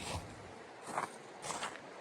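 Footsteps: a few short, irregular scuffs about half a second to a second apart.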